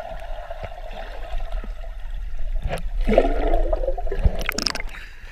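Swimming-pool water heard from underwater, muffled, with a steady low hum and a swell of water noise about three seconds in as a swimmer ducks under.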